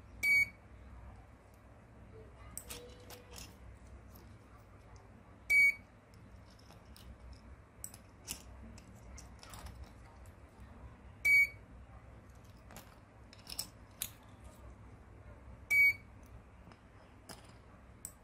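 The RFID door lock's buzzer gives four short, high beeps several seconds apart, with faint clicks in between.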